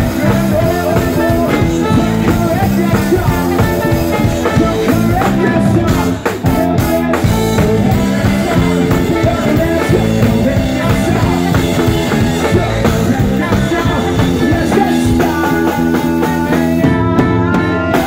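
Live rock band playing with a male singer: drum kit, electric guitar, bass guitar and trombone.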